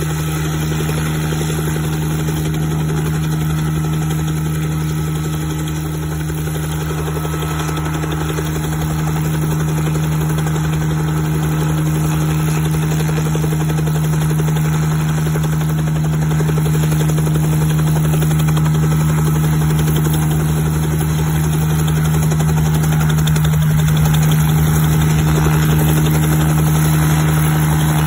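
Bell 47G-3B-2 helicopter in a low hover: its piston engine and two-blade main rotor running steadily, growing a little louder as it goes on.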